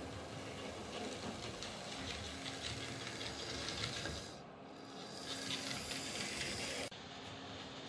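Märklin F7 H0-scale model diesel locomotive running along the track and passing close by: a steady mechanical running noise from its motor and wheels on the rails. The sound changes abruptly near the end.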